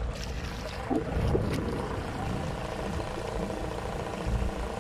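Boat engine running steadily while the boat crosses choppy water, with gusty wind rumbling on the microphone.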